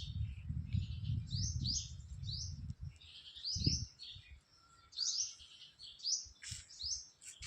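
Small birds chirping: a string of short, high, quick notes repeated every half second or so. A low rumble runs under the first three seconds, with a single low thud a little before four seconds.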